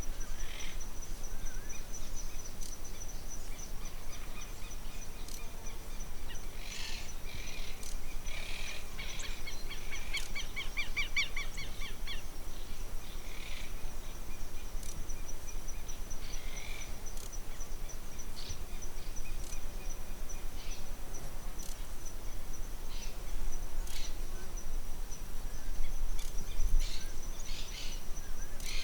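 Wild birds calling outdoors: rapid trilled calls for a few seconds about a quarter of the way in, then short scattered chirps. A steady high-pitched hum and a low rumble of outdoor noise run underneath.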